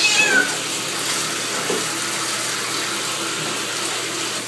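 Bathtub tap running steadily into the tub. A wet cat being bathed gives one short, falling meow right at the start.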